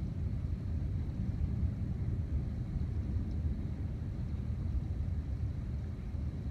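Continuous low rumble of distant thunder, steady with no separate claps, like a freight train going by.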